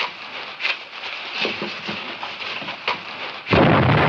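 A few scattered knocks and clinks, then about three and a half seconds in a sudden loud rumble starts and keeps going: a sound effect for a wall collapsing.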